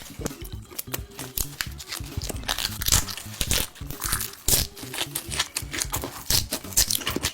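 Close-miked chewing of spicy Korean pork: rapid wet clicks, smacks and crunches from the mouth, over background music with a low stepping bass line.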